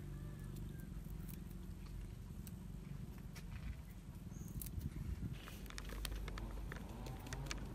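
Flour poured from a crinkling plastic bag into a wooden bowl: a soft patter with crackles and clicks from about five seconds in, over a steady low hum.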